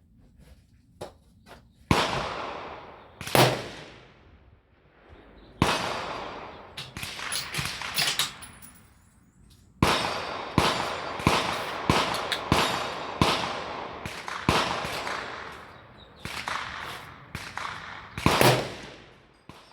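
A string of gunshots, some loud and close and others fainter, irregularly spaced, each followed by a long echoing tail. The shots come quickest, about one a second, a little past halfway through.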